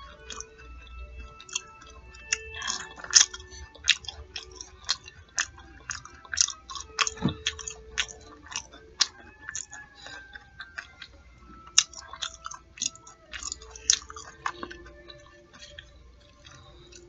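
Close-miked chewing of fish nuggets and fries: many irregular sharp, wet mouth clicks and soft crunches.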